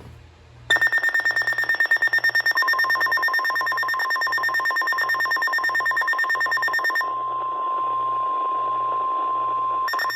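Weather radio alert alarm for a severe thunderstorm warning. A rapid electronic beeping starts under a second in, and a steady NOAA Weather Radio warning tone joins about two seconds later. The beeping drops out about seven seconds in, leaving the steady tone alone, then comes back near the end.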